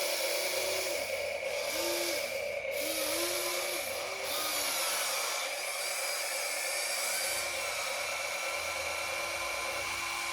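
Small electric motors of a remote-control toy excavator whining steadily, with short rising-and-falling whirs as motors start and stop under the controls.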